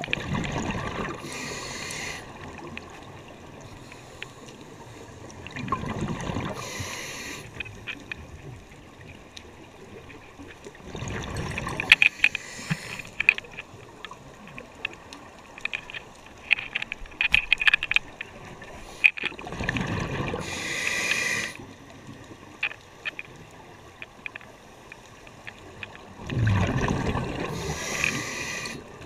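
Scuba diver breathing through a regulator: five bubbling exhalations, each about two seconds long and coming every five to seven seconds, with scattered faint clicks between them.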